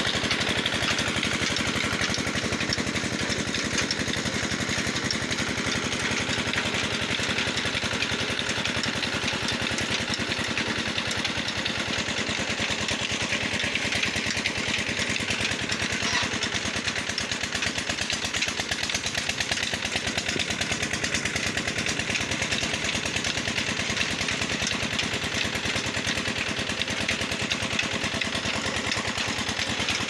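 Engine driving a large band-saw sawmill through a shaft and pulleys, running steadily with an even, rapid beat while the band saw cuts wooden planks.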